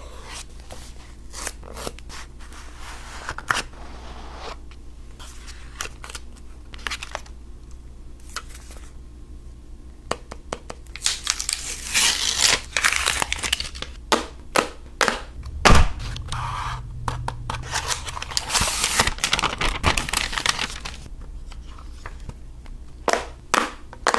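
A smartphone's retail box and packaging being opened by hand: paper and plastic torn and crinkled in two longer stretches, between many short clicks and light knocks as the box parts are handled.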